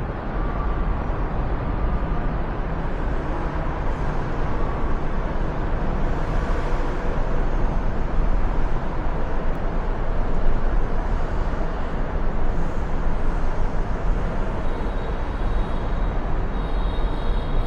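Steady street traffic noise: a continuous rumble of passing vehicles with no single event standing out.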